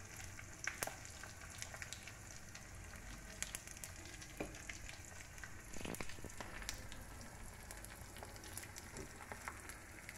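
Faint sizzling of hot oil in a small pan as a tempering of dried red chillies, green chillies and crushed garlic fries, with scattered crackles and a few light clicks.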